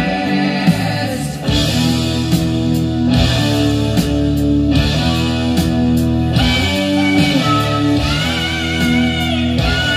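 Dark, heavy guitar-driven rock played loud through a hi-fi system's floor-standing speakers, driven hard by AGD Production Audion tube monoblock amplifiers, with steady deep bass notes and a gliding lead line in the second half. The amplifiers keep playing without cutting out at this torture-test volume.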